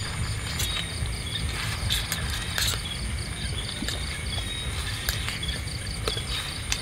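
Night insects chirping in a steady pulsing trill, about four to five pulses a second, with scattered sharp clicks and knocks over a low rumble.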